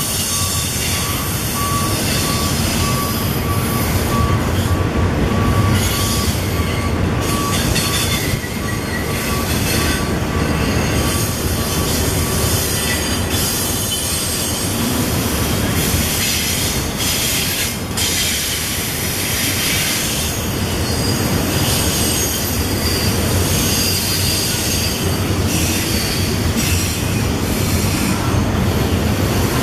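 Union Pacific double-stack container cars rolling steadily past on the rails: a continuous loud rumble and rattle of wheels and cars. A thin, steady wheel squeal runs through the first half and then fades out.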